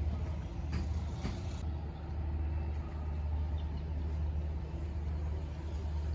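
Steady low rumble with a faint, even hum above it, and a few light clicks about a second in.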